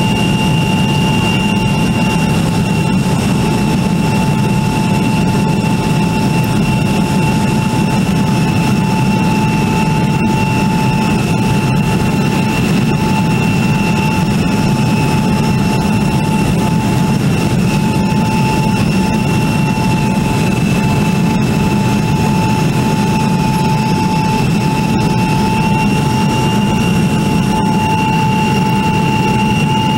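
Jet airliner cabin noise at a window seat over the wing, with the flaps extended: a steady engine roar with a high whine over it. The whine rises slightly in pitch near the end.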